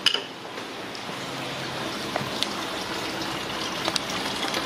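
Engine coolant gushing from an open radiator drain into a plastic bucket: a steady pouring that grows slightly louder as it runs. The radiator cap has just been opened so that no vacuum holds the flow back.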